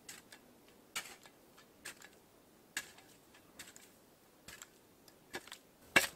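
Small Coghlan's survival shovel scraping and chopping into packed snow as a fire pit is dug out: short crunching strokes about once a second, seven or so, the loudest just before the end.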